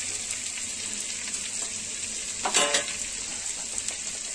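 Butter sizzling as it melts and foams in a hot wok: a steady frying hiss with fine crackles, and a brief louder noise about two and a half seconds in.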